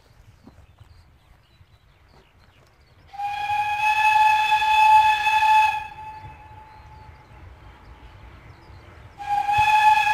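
Whistle of the Ol49-69 steam locomotive blowing two long blasts at one steady pitch: the first starts about three seconds in and lasts some two and a half seconds, the second starts near the end and is still sounding.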